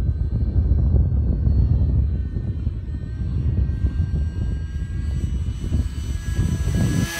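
Bixler 2 RC plane's electric motor and pusher propeller whining as it makes a low flyby, the whine rising in pitch and getting louder as the plane closes in near the end. A heavy low rumble of wind on the microphone runs underneath.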